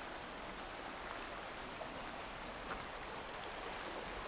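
A shallow creek flowing over gravel and stones: a steady rush of running water.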